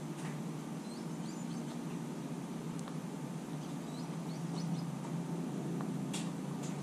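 Outdoor ambience: a steady low hum with faint, brief bird chirps twice in the middle, and a few soft clicks, one near the start and two near the end.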